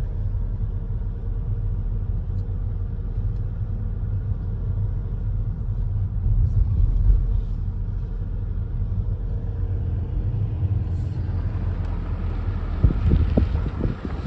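Low, steady road and engine rumble heard inside the cabin of a Volkswagen Passat B6 driving slowly. Near the end wind begins to buffet the microphone.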